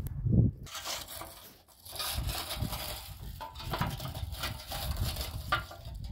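Footsteps on loose stones, then dry twigs and brush crackling and crunching as they are handled and pressed into a clay dish.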